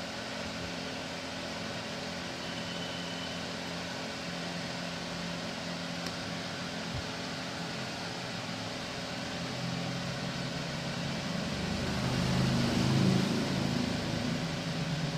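Steady mechanical hum and hiss, growing louder about twelve seconds in and easing off slightly near the end.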